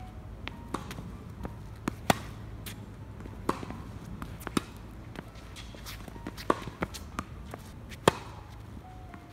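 Tennis rally on a hard court: sharp pops of racket strings striking the ball and the ball bouncing on the court, a few seconds apart, the loudest hits about two seconds in and near the end.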